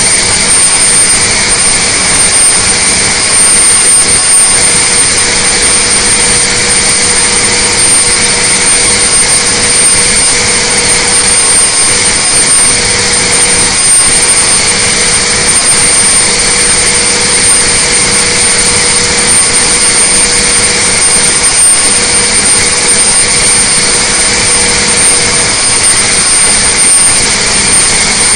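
Detroit Diesel Series 60 inline-six diesel running flat out at full throttle and full load on an engine dynamometer, held steady at about 2,070 rpm and 600 hp. Loud, steady roar with a constant high whine over it.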